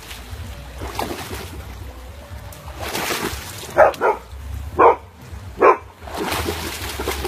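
A dog barking four times in quick succession about halfway through, while water splashes around it as it wades.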